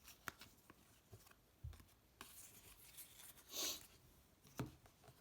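Faint handling of football trading cards: a few light clicks and one soft swish as the cards slide against each other.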